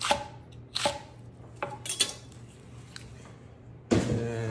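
Chef's knife chopping romaine lettuce on a wooden cutting board: two firm chops about a second apart, then a few lighter knocks. Near the end comes a louder clatter with a brief ringing tone.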